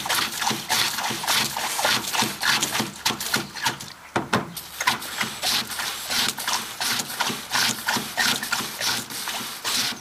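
Hand pump worked in quick, repeated strokes, pumping seepage water out of a compartment of a leaking Aerocet amphibious float.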